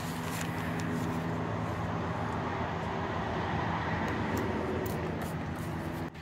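Semi truck's diesel engine idling steadily, with a paper towel rubbing on the windshield glass.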